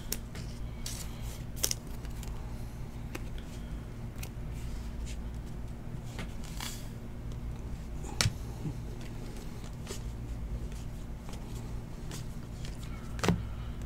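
Football trading cards handled and flipped through a stack, with scattered soft clicks and rustles of card on card, over a steady low electrical hum.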